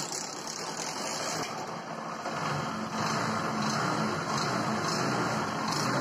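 Bajaj Discover 100's single-cylinder engine idling steadily, just started. Its new timing chain and tensioner are fitted, and it runs without the earlier engine noise. It gets a little louder about three seconds in.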